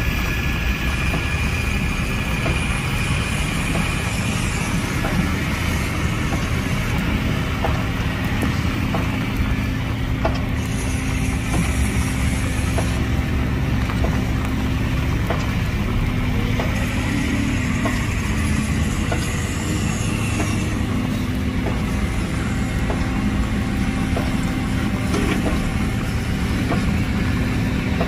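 Diesel engine of heavy construction machinery running steadily, with a few light clicks and knocks scattered through it.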